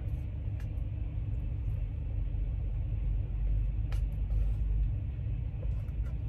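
Steady low rumble of an idling truck engine heard from inside the cab, with a faint click about four seconds in.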